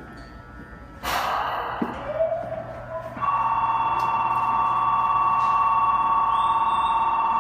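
Station platform departure buzzer ringing steadily, a loud shrill electric ring that starts about three seconds in and holds on: the signal that the train is about to leave. Before it comes a short burst of hiss about a second in.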